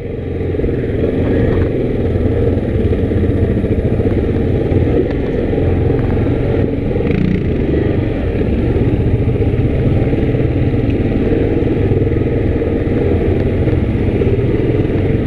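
2019 Yamaha Grizzly 700 ATV's single-cylinder engine running steadily while under way on the trail, rising in level during the first second.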